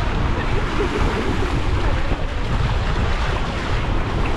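Wind buffeting the microphone as a low, fluttering rumble, over the steady wash of small waves on the shore.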